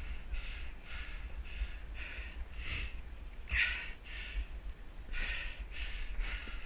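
A climber panting hard, short quick breaths about two a second, the strongest about halfway through. A steady low rumble of wind on the microphone runs underneath.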